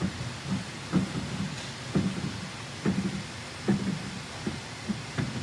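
Heidelberg MOVP offset printing press turning over slowly: a steady hum with a heavy clunk about once a second as the cylinders cycle.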